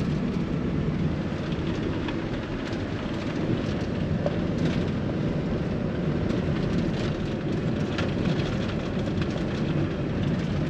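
Steady road noise of a moving car heard from inside the cabin: tyre rumble and engine drone with wind hiss.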